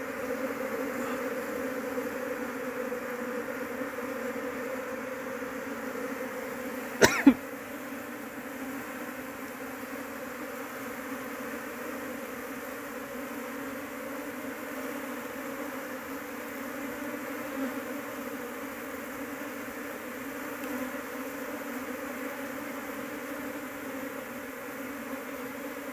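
A disturbed colony of Asian honeybees (Apis cerana) buzzing steadily, a dense, even hum from the dug-open nest and the clusters of bees being handled. About seven seconds in, two sharp knocks.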